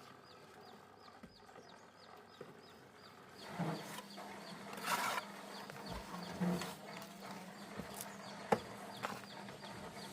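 A short high chirp repeating about three times a second, joined from about three and a half seconds in by a low steady hum and scattered knocks and clatter.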